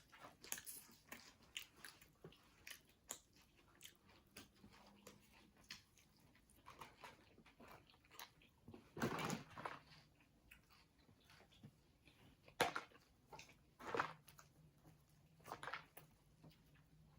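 Faint chewing and mouth sounds of someone eating a chicken sandwich: soft irregular clicks and crunches, with a few louder bites about nine, twelve and a half and fourteen seconds in.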